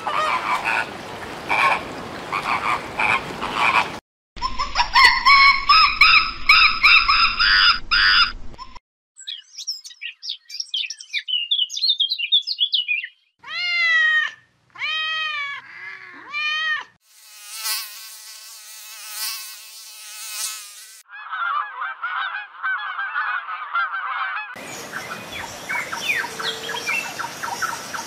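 A string of different animal calls spliced together, switching abruptly every few seconds: flock chatter, high chirps, three separate rising-and-falling calls, then other calls.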